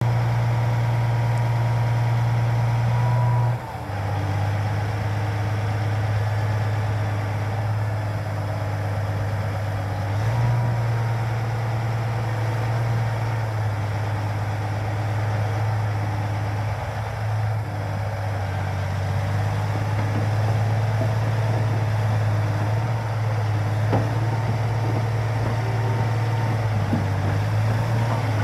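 Cat D10T2 crawler dozer's C27 V12 diesel engine running steadily with a deep, even note. The note steps down briefly a few seconds in and shifts a couple more times as the engine speed changes.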